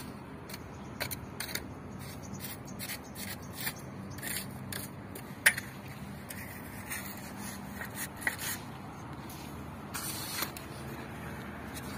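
Trowel scraping and tapping wet cement mortar in short, irregular strokes, with one sharp click about five and a half seconds in, over a steady low hum.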